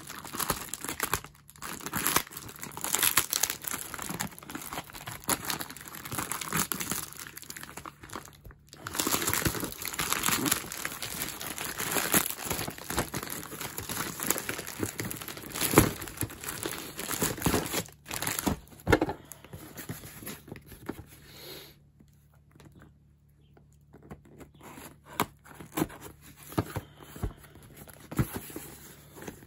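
Plastic poly mailer bag crinkling and tearing as it is cut open with scissors and a cardboard box is pulled out of it. The rustling dies down about three-quarters of the way through, leaving only light handling taps.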